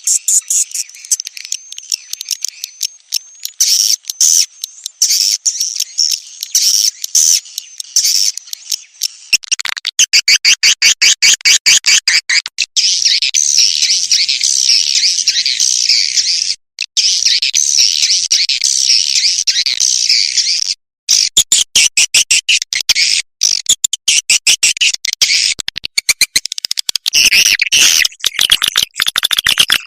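Swiftlets (walet) twittering and chirping shrilly in a recorded swiftlet lure call. About nine seconds in, a dense run of rapid clicks comes for about three seconds, then a continuous busy twittering follows.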